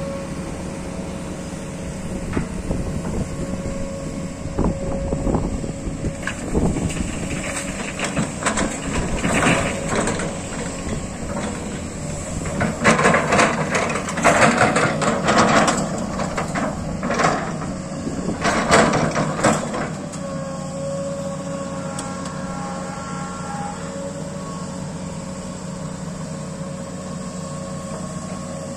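Sany crawler excavator's diesel engine running at a steady note while the bucket digs into earth. From about two seconds in there is a run of scrapes, clanks and knocks, loudest in the few seconds before they stop about twenty seconds in. After that only the steady engine runs as the loaded bucket lifts.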